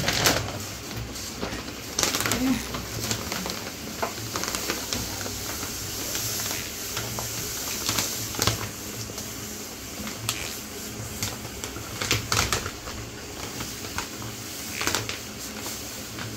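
Powdered laundry detergent pouring from a plastic bag into a plastic bucket: a steady hiss of falling granules, broken by frequent crackles and rustles of the plastic bag being handled.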